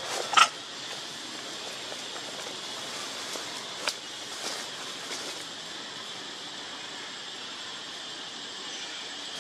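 Forest ambience with a steady high hiss. About half a second in there is a short, loud, high-pitched squeak, and about four seconds in a single sharp click.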